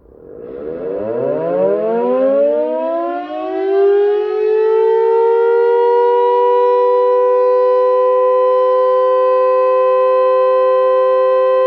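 Elektror S2 motor siren sounding a test alarm: it starts up and winds up in pitch for about four seconds, then holds a loud, steady two-note tone.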